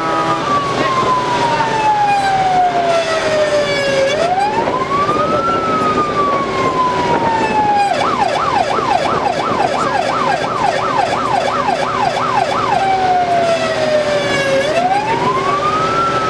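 Fire truck's electronic siren heard from inside the cab over engine and road noise. It runs a slow wail, rising quickly and falling slowly, then switches about eight seconds in to a fast yelp of about two to three sweeps a second for some five seconds, then goes back to the wail. A held note with several tones cuts off right at the start.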